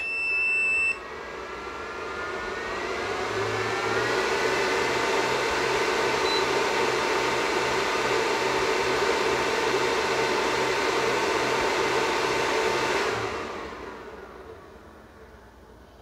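Power inverter starting up: a steady electronic beep that stops about a second in, then its cooling fan spinning up with a rising whine, running steadily with a low throb about twice a second, and shutting off about thirteen seconds in, fading away.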